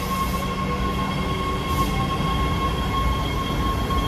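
Los Angeles Metro Breda A650 subway train pulling into an underground station platform: a steady low rumble of the cars rolling past with a steady high whine over it, which fades out near the end.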